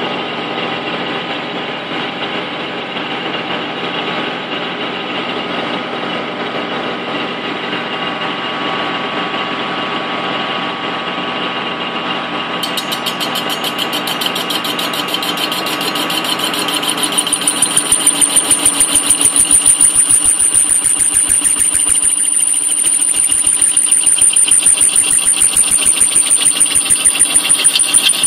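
Small Microkinetics 1236 CNC lathe turning an aluminium ring, with a steady spindle and drive whine. About 17 seconds in it grows louder, with a fast even pulsing and a high whistling tone as the tool cuts into the aluminium.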